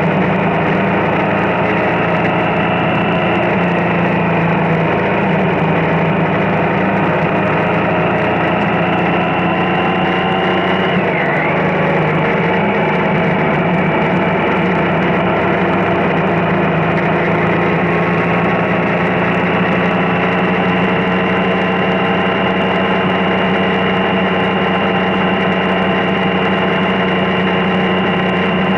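Triumph Street Triple motorcycle's inline three-cylinder engine running at a steady road pace, with the rush of riding noise under it. Its pitch dips briefly about a third of the way in, then climbs slowly.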